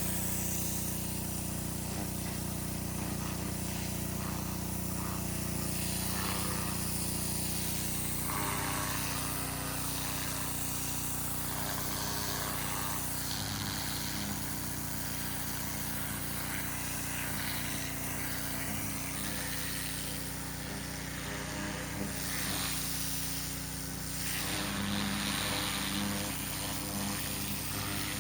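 Small petrol engine running steadily at a constant speed, its hum changing slightly in character about a third of the way through.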